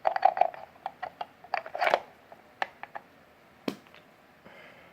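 Plastic parts of a floor mop machine being handled during a teardown. A quick run of clicks and rattles fills the first two seconds, followed by scattered single clicks and one sharper knock a little past the middle.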